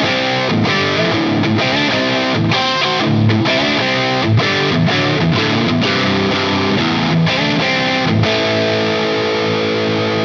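Soloking MS-1 electric guitar with humbucking pickups played through distortion: a run of quick picked notes and riffs, then a chord struck about eight seconds in and left ringing.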